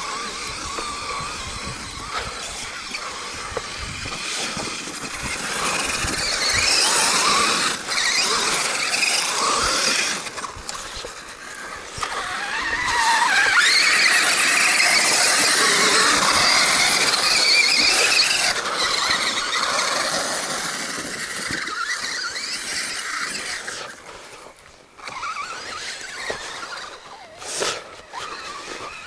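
Traxxas Summit RC truck's 2700KV brushless motor and gears whining, the pitch rising and falling as the throttle is worked. The whine is loudest about halfway through and dips briefly near the end.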